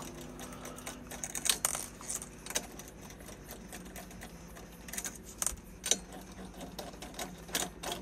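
Four-way cross lug wrench spinning loosened lug nuts off a car's wheel studs: light metallic clicks and rattles at irregular intervals as the wrench and nut knock.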